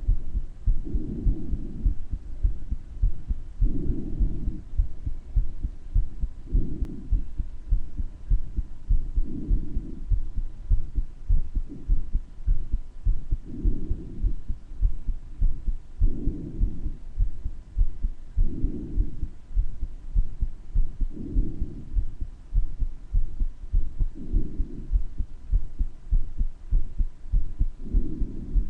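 A person's heartbeat with a heart murmur, a steady train of low thumps. Breath sounds swell and fade over it as a soft rush every two to three seconds.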